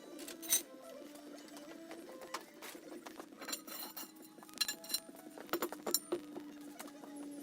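Quiet music with held notes that change pitch slowly, over scattered light clicks and taps.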